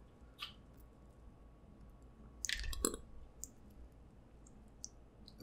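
Snow crab leg shell cracking and clicking under the fingers in a few sharp snaps, loudest in a short cluster of crackles about halfway through.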